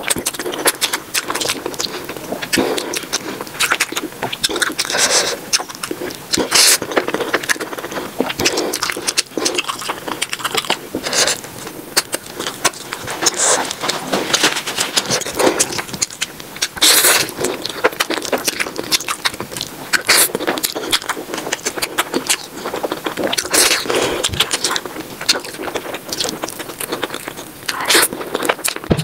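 Close-miked eating sounds of black bean noodles being slurped and chewed, sped up three times: a dense, fast, irregular run of clicks and slurps.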